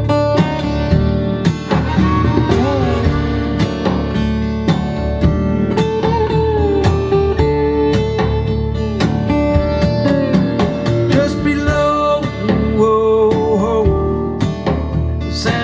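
Recorded music played through a hi-fi amplifier and speakers: a guitar-led instrumental passage with plucked strings and gliding lead lines.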